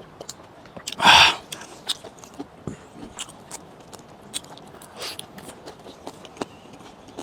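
A person eating close to the microphone: many small wet clicks of biting and chewing, with one loud noisy crunch or mouth sound about a second in.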